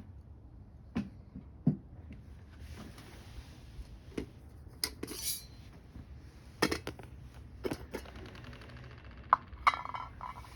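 Small wood fire crackling in a compact metal wood stove that is burning with secondary combustion: irregular sharp snaps and pops over a low steady hiss. A few of the snaps are louder, and near the end one rings briefly off the metal.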